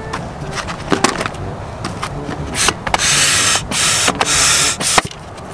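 Intex high-output hand pump being worked to inflate an inflatable boat. A few knocks and clicks of handling come first, then from about halfway through, about three loud whooshes of air rush through the pump and hose as the handle strokes.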